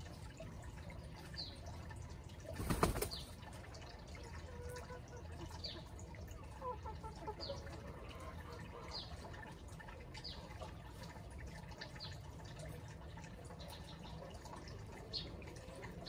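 Chickens foraging: a short flurry of wing flapping about three seconds in is the loudest sound, over short high chirps that repeat about once a second.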